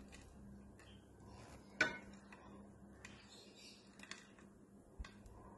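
Faint handling of a ripe plantain being stuffed by hand with grated coconut filling, with a few light clicks and knocks against dishes, the sharpest about two seconds in.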